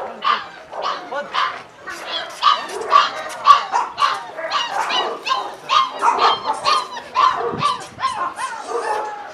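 A pack of dogs barking over one another in quick succession, about two to three barks a second, with no break.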